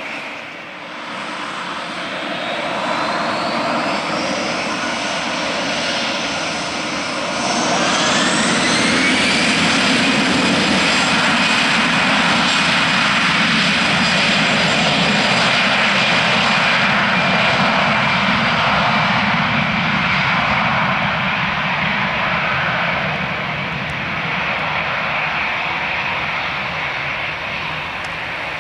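Airbus A320-214's twin CFM56-5B turbofan engines spooling up for takeoff: a rising whine a couple of seconds in, then a second rise about eight seconds in to a loud, steady high-pitched whine over a low roar.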